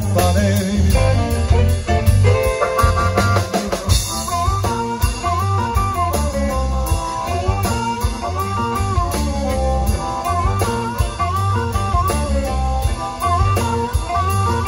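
Live rock-blues band playing an instrumental passage through a PA: electric guitars, bass and drum kit, with a wavering lead line over the top from about four seconds in.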